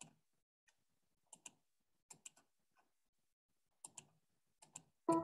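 Faint computer mouse clicks, mostly in quick pairs, about once a second. A video advertisement's music and voice start right at the end.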